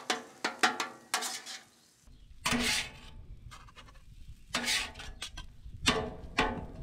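Metal griddle spatulas scraping, chopping and clanking on the steel griddle top while breaking up and turning scrambled eggs, sausage and peppers: quick clusters of sharp scrapes and taps with a short lull in the middle.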